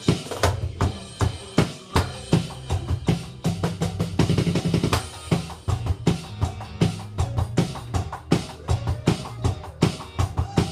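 Electronic drum kit played in a steady beat along with a backing track of bass and band, with a quick run of strokes, a fill, about four seconds in.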